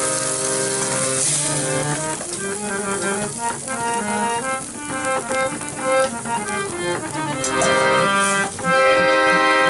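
Background instrumental music of held chords that change every second or so, growing louder near the end.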